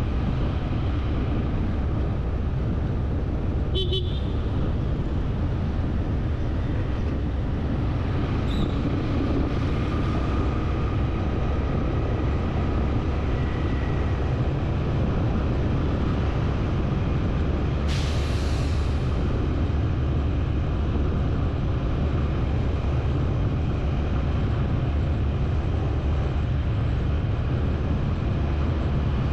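Steady low vehicle rumble with a short horn toot about four seconds in and a brief hiss about two-thirds of the way through.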